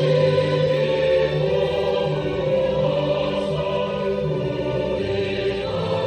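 Slow, solemn music of long held chords with a choir-like sound.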